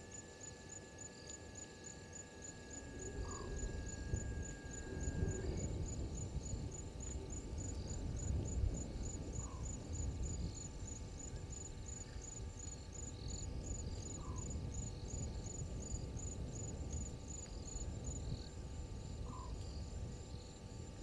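Night bush ambience: an insect chirping in a steady high pulse, about two to three chirps a second, with a short rising call about every five seconds. A low rumbling noise swells a few seconds in and is the loudest sound.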